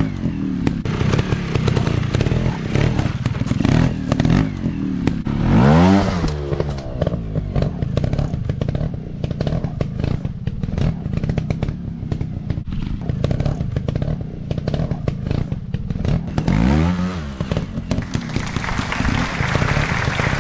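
Dirt bike engine running with a steady low note, revved up and back down twice, amid clattering and scraping over rough ground. Music comes in near the end.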